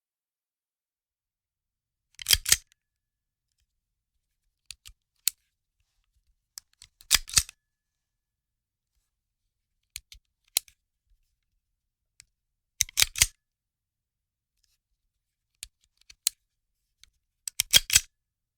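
Gun-handling sound effects: short clusters of sharp metallic clicks, like a firearm being cocked or reloaded, repeating about every two to three seconds with dead silence between. Most clusters are led by one or two faint clicks.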